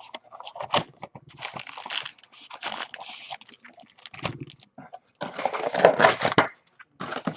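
Wrapping on trading-card boxes and packs being torn open and crinkled, in several crackly bursts, the loudest about five to six seconds in.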